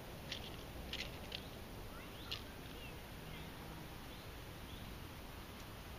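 Faint birdsong outdoors: a few short, sharp chirps in the first couple of seconds, then soft scattered high notes over a steady low background hum of the open air.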